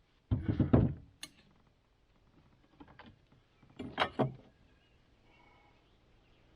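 Lumber being handled: wooden knocks and scraping, a loud burst about half a second in and another about four seconds in, with a few smaller knocks between.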